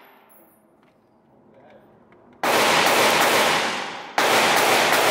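Fairly quiet at first, then two loud bursts of rapid gunfire, one starting suddenly about two and a half seconds in and another about four seconds in.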